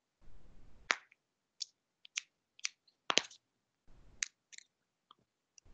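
A string of about nine short, sharp clicks at uneven intervals, the loudest a quick double click about three seconds in.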